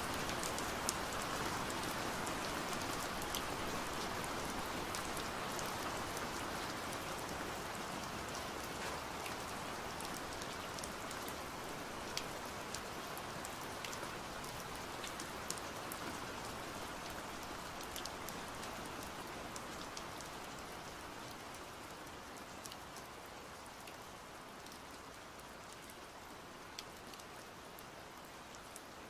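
Steady rain falling, with scattered sharper drop taps; the rain gradually eases and grows quieter.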